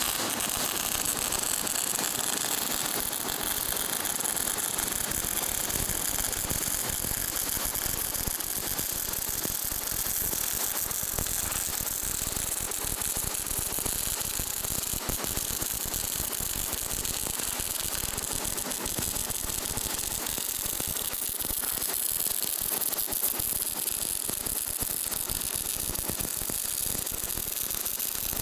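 Welding arc crackling steadily during a pipe weld, a dense even hiss of fine crackles.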